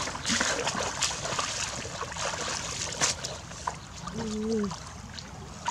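Shallow muddy water splashing and sloshing as a person wades and gropes through it with her hands, with a few sharper splashes. A short pitched call comes about four seconds in.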